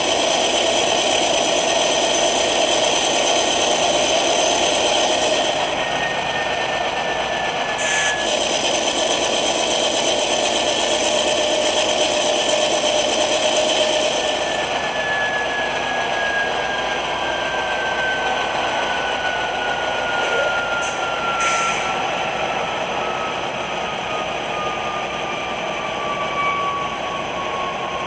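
Model diesel locomotive sound from a DCC sound decoder, played through a small passive-radiator speaker: a GE Dash 9 prime mover running with a steady engine drone and turbocharger whine. Over the second half the whine slowly falls in pitch as the engine winds down. A short hiss sounds about eight seconds in and two more come near the three-quarter mark.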